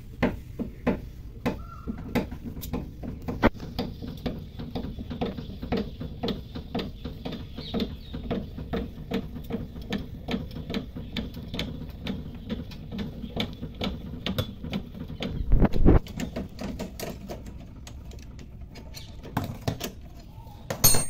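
Car screw jack being wound down by its hand crank, turned anticlockwise: a steady run of short metallic clicks, about three or four a second, as the jack lowers the car. A louder knock comes about sixteen seconds in.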